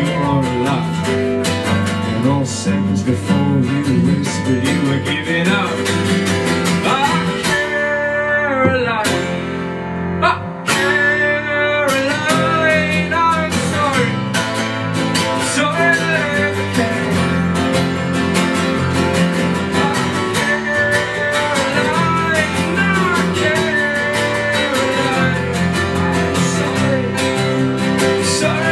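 Two acoustic guitars strumming a song together live, with a bass underneath. The playing thins out briefly about eight seconds in and comes back full about two and a half seconds later.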